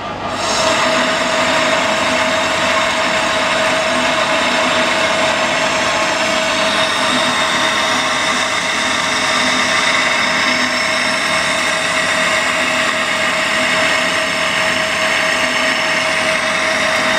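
Metal lathe running at 440 RPM while a boring bar cuts about 1.5 mm out of the bore of a bush. It is a steady, loud machining sound with a constant mid-pitched tone and the hiss of chips coming off fast. The cut starts with a jump in level about half a second in.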